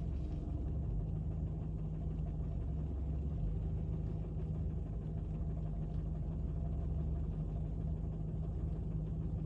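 Fiat Bravo's 1.4 T-Jet turbocharged four-cylinder petrol engine running steadily with a low rumble, recorded for a knocking noise that appeared after recent maintenance.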